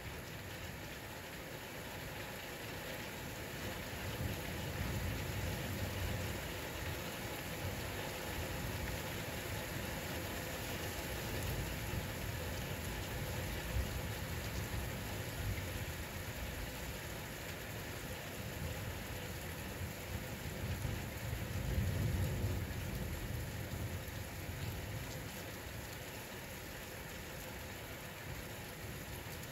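Steady rain falling, with low thunder rumbling underneath that swells about four seconds in and again more strongly around twenty-two seconds in.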